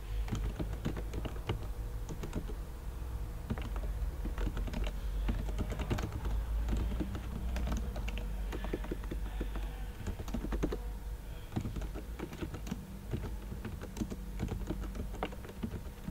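Computer keyboard typing: quick, irregular keystrokes clicking one after another throughout, over a low steady hum.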